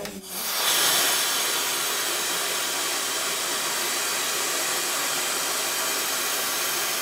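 Portable oxygen unit being filled, with oxygen hissing steadily. The hiss starts abruptly just after the start and holds at an even level.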